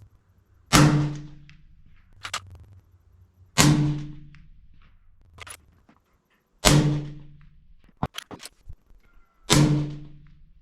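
Four suppressed 6.5 Creedmoor rifle shots about three seconds apart, fired through a 224-caliber silencer. Each is a sharp crack with a short low ring and decay. Light metallic clicks of the bolt being worked come between shots.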